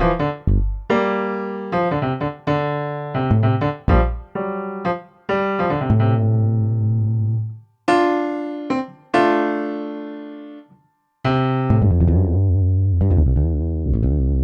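Korg Kronos 3 workstation keyboard playing a piano-type sound: chords struck and left to ring and fade, with two short breaks. Over the last few seconds a long chord is held with deep bass notes.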